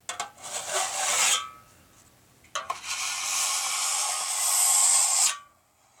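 Two long scraping, rasping strokes. The first lasts about a second and a half; the second starts with a click about two and a half seconds in, runs nearly three seconds and cuts off suddenly.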